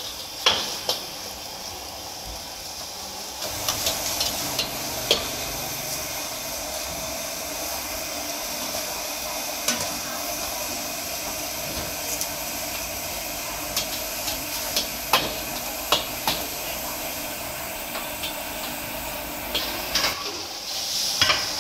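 Stir-frying in a wok over a high gas flame: a steady sizzle and burner hiss that grows louder about three and a half seconds in, with the metal ladle clanking and scraping against the wok every few seconds.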